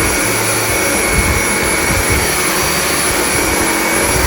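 Dyson stick vacuum cleaner running steadily, a loud motor hiss with a thin high whine.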